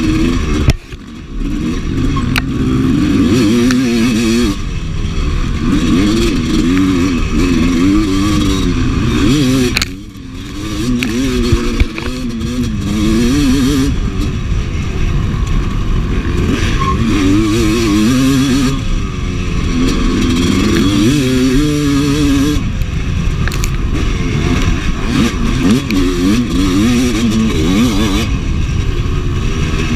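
Honda CR250 two-stroke single-cylinder dirt bike engine revving up and down hard under race load, heard from on the bike. The throttle shuts briefly about a second in and again about ten seconds in.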